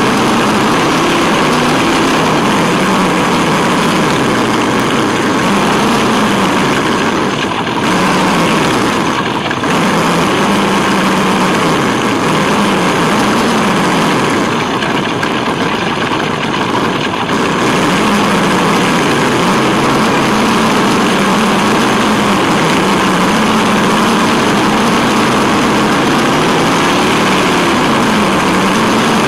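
Onboard sound of a Tamiya Wild Willy 2 radio-control truck driving. Its electric motor and gears whine at a pitch that rises and falls with the throttle, over a steady noise of tyres rolling on paving and gravel. It eases off briefly a couple of times in the middle.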